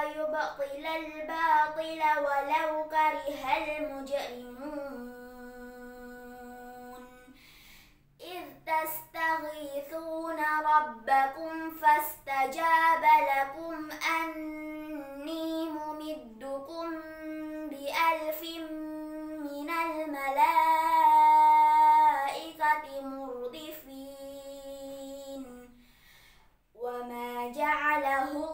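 A young girl reciting the Quran aloud in tartil style: a slow, melodic chant in Arabic with long held notes, one fading out before a breath pause about eight seconds in.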